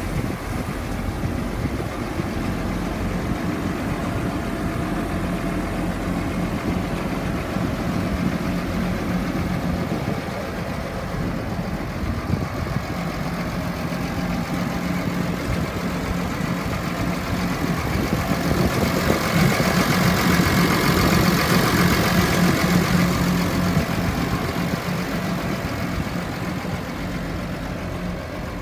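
McCormick 6.7 L six-cylinder diesel tractor engine idling steadily. It grows louder and brighter for several seconds past the middle, then eases back.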